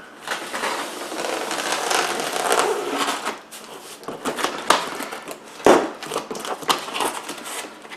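A cardboard shipping box being opened by hand: a long stretch of scraping and tearing for about three seconds, then scattered knocks, rustles and clicks as the flaps and packing are handled.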